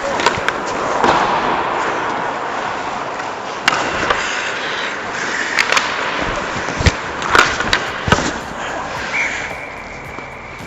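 Ice hockey play heard up close from the goal: skate blades scraping the ice steadily, with sharp clacks of sticks and puck striking several times.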